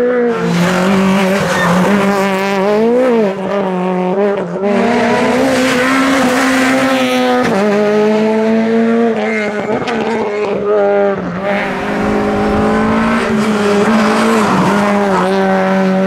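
Rally car engines running hard at high revs. The engine note steps down and climbs again several times as the drivers change gear and lift for the bends.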